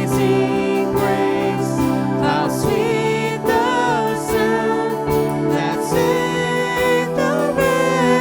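Worship music: sustained chords with a wavering, gliding melody line over them.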